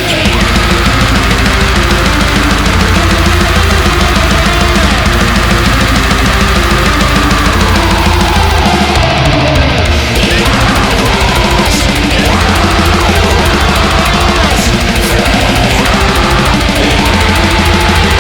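Loud music with a heavy, driving beat.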